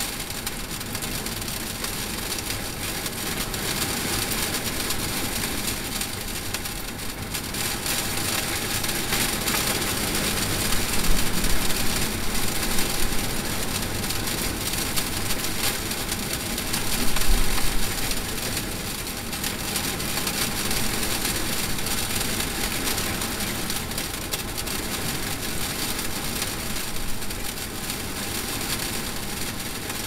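Continuous rumbling noise of a violent windstorm, with louder surges about 11 to 13 seconds in and a deeper, louder swell about 17 seconds in.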